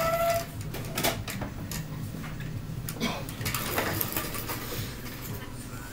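Scattered light clicks and knocks of small hard objects being handled, a few of them spread across several seconds, over a low steady hum.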